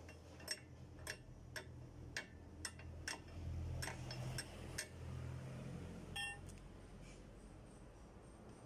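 Sharp metal clicks, about two a second for the first five seconds, then one ringing metal clink about six seconds in, from hand work on an Isuzu truck's rear drum brake shoe assembly as its adjuster lock is fitted. A low steady hum runs underneath.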